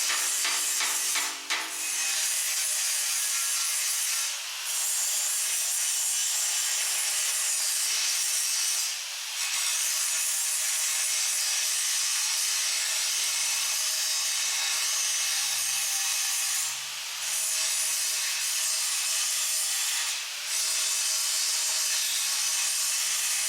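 Angle grinder grinding down welds on a steel bumper bar: a steady, harsh hiss, broken by a few short pauses as the disc comes off the metal.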